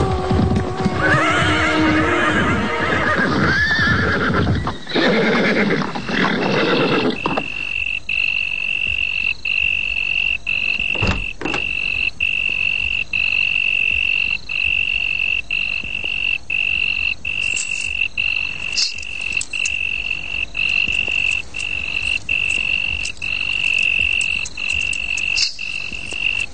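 Horses neighing and hooves clip-clopping over music for the first several seconds. Then a steady high-pitched trill of night creatures takes over, breaking briefly about every two-thirds of a second.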